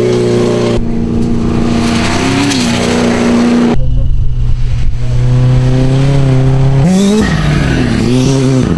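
Rally car engines at high revs on a gravel stage, heard in several short clips: a steady high engine note that changes abruptly at each cut, then near the end an engine revving up and down as the throttle is worked through a slide.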